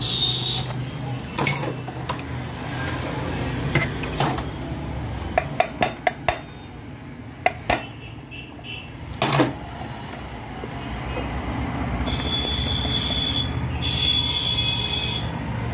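Sharp metallic clicks and clinks from hands and tools working on a sewing machine under repair, including a quick run of about five clicks midway. A steady low rumble runs underneath, and a high thin tone sounds twice near the end.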